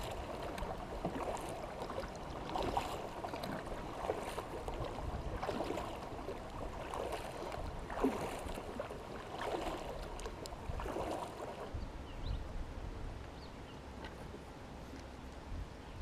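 Kayak paddle strokes, the blades dipping and swishing through the water about once every second and a half, with water gurgling along the hull. The strokes stop about twelve seconds in, leaving a low rumble.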